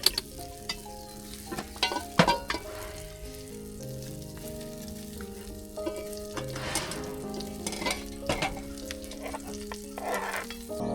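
Food sizzling in a pan, swelling in short hisses several times, with clicks and scrapes of a utensil stirring it, over soft background music.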